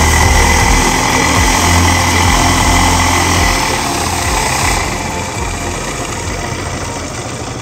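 Boat's outboard motor running steadily with its cover off, a loud rattling engine noise close by; it eases off a little about five seconds in.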